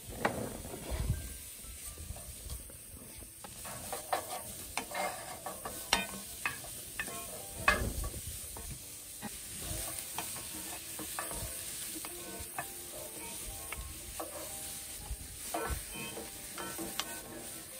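Chopped onion and whole garlic cloves sizzling in a hot dry pan with no oil, with irregular knocks and scrapes of a utensil stirring them against the pan.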